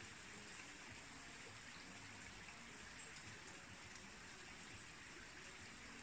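Near silence: a faint, steady outdoor background hiss with no distinct events.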